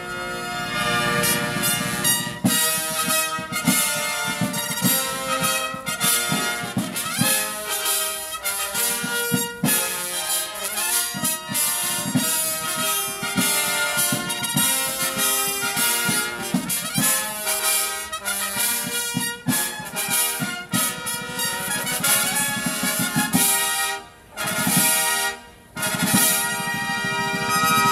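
A military herald trumpet ensemble playing live, with snare drums beating under the massed trumpets. The music breaks off briefly about 24 seconds in, then comes back in loud.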